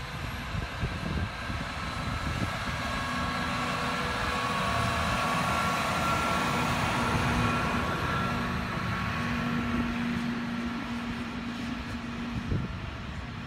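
Self-propelled rail maintenance machine running past on the track: engine and steel wheels on the rails, with a few steady whining tones over a rumble, growing louder to a peak mid-way as it passes and then fading as it moves off. A single sharp click comes near the end.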